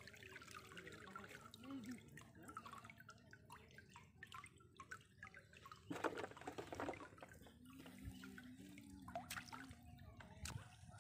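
Water dripping and trickling off a bamboo-framed push net lifted out of shallow water and laden with wet twigs, with a louder slosh about six seconds in.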